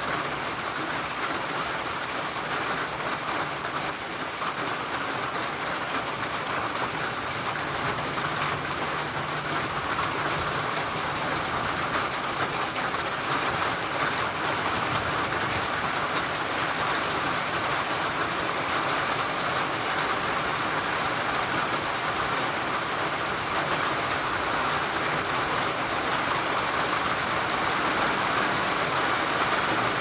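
Steady rain drumming on a tin roof, a dense patter of drops that gets slightly heavier near the end.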